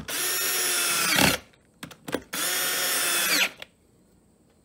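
Power drill driving hex screws into a boat seat's aluminium mounting plate, in two runs of about a second each, with a few light clicks between them.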